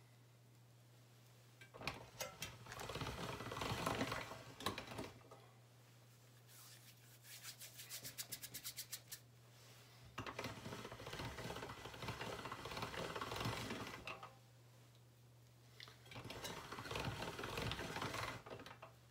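Hands and sculpting tools working polymer clay: soft rubbing and scraping in several stretches, with a quick run of small clicks in the middle, over a steady low hum.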